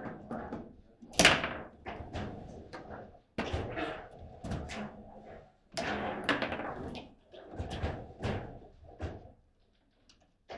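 Table football in play: the ball struck by the rod figures and knocking against the table, an irregular run of sharp knocks and thuds, with the hardest hit about a second in.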